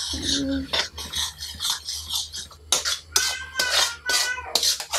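A spatula scraping and knocking around a kadai while stirring thick halwa. There are quick scrapes and clinks, sharpest and most frequent in the second half, some with a short metallic ring.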